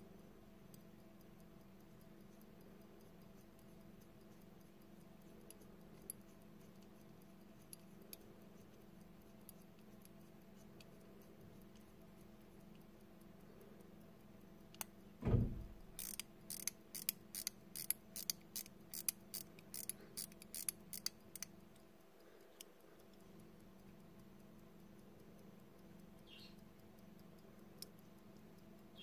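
Soviet Molnija mechanical pocket watch ticking faintly and steadily. About halfway through comes a thump of handling, then a quick run of sharp clicks for about five seconds as fingers turn the crown.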